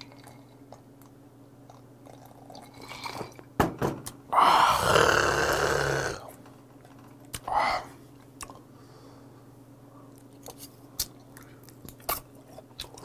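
A man eating and drinking up close: about four seconds in, a loud breathy exhale of about two seconds after a swallow of highball, then scattered small clicks of chewing and chopsticks.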